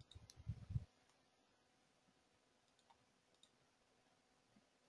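Near silence: a few faint low bumps in the first second, then scattered faint clicks.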